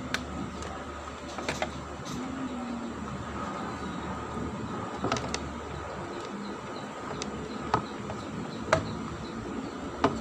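Scattered light clicks and taps of a small screwdriver against hard plastic as a screw is turned on the underside of a toy remote-control car, over a steady background hum.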